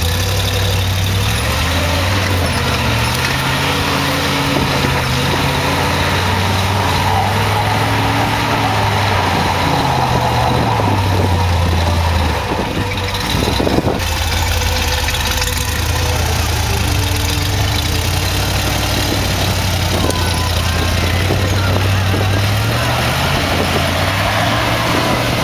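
Willys Jeep engine revving hard and straining as it climbs a steep dirt hill, its pitch rising and falling again and again as the throttle is worked. About halfway through it briefly drops off, then picks up again after a sharp knock.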